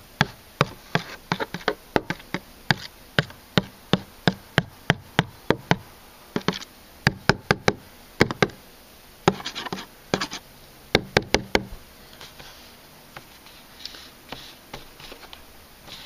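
Metal rod tapping and poking against a clear plastic cup as it works congealed HVAC stop-leak sealant: a run of sharp clicks, about two a second, with quicker flurries, then growing faint about twelve seconds in.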